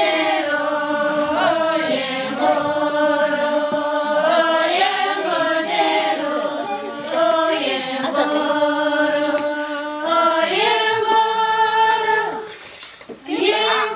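A group of women singing together in unison without instruments, holding long notes and stepping between pitches. The voices break off briefly about 13 seconds in, then come in again.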